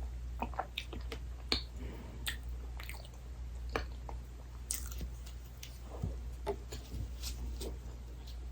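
Close-miked chewing of soft dessert: irregular moist clicks, smacks and squishes of the mouth, a little over one a second.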